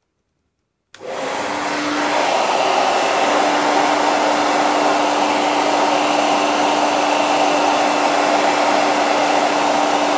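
Handheld hot-air blower switched on about a second in and running steadily: a loud, even rush of air over a steady hum. It is heating the phone's insides to free a glued display cable.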